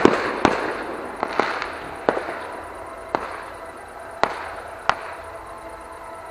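Fireworks shells bursting in the sky: about nine sharp bangs, each followed by a rolling echo, growing sparser and fainter, the last about five seconds in.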